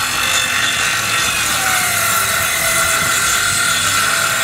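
Battery-powered cordless circular saw cutting through a wooden board, a steady motor whine with the blade in the wood. The whine sags a little in pitch through the middle of the cut.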